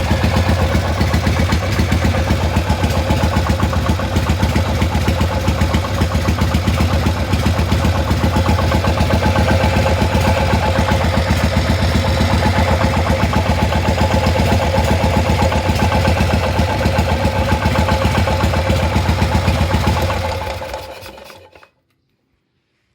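Harley-Davidson Shovelhead V-twin idling steadily, with an abnormal noise that the owner questions as coming from the crank or the primary drive on the front pulley side. The engine is switched off near the end and runs down to silence.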